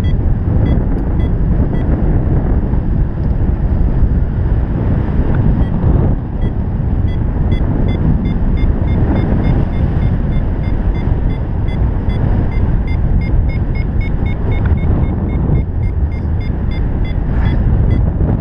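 Wind rushing over the microphone in paraglider flight, with a variometer beeping in a regular series of short, high tones that come closer together toward the later part, the beeps signalling the glider climbing in lift.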